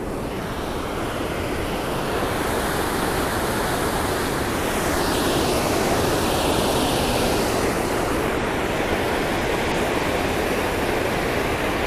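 River water pouring over a low concrete dam and churning below it: a steady rush of falling water.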